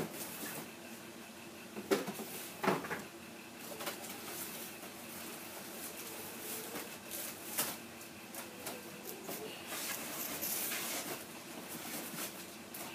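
Packaging and plastic parts of a boxed RC airboat being handled: scattered clicks, knocks and rustles, with a faint low hum underneath.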